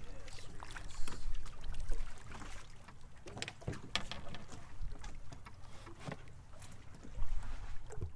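A small boat rocking on the water, with water lapping at the hull and a low rumble that swells louder about a second in and again near the end, over scattered short clicks and knocks.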